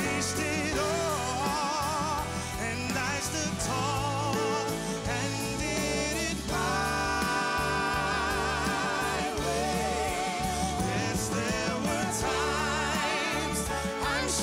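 A song with a solo singer holding long notes with wide vibrato over band accompaniment.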